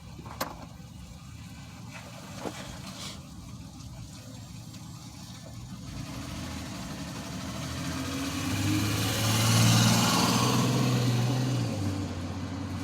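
A few light clicks early on, then a motor vehicle's engine and tyre noise swell up to a peak about ten seconds in and ease off, like a car driving past.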